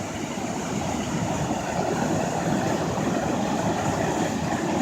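Turbulent water rushing below a dam, a steady rushing noise that swells slightly and then holds.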